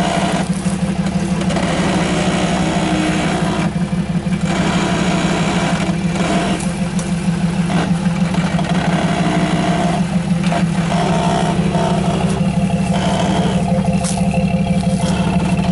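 Jeep Wrangler YJ engine running steadily at low revs as the Jeep crawls slowly through a rough off-road ditch.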